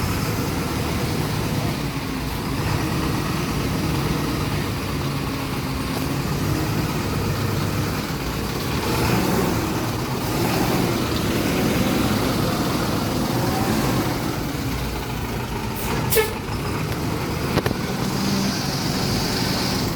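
Marcopolo Sênior Midi midibus on an Agrale MA 15.0 chassis pulling away, its diesel engine running steadily and swelling around the middle. A couple of sharp clicks come near the end, followed by a short hiss.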